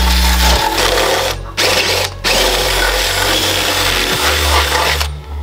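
Cordless drill running hard in long runs, cutting out briefly twice, about one and a half and two seconds in.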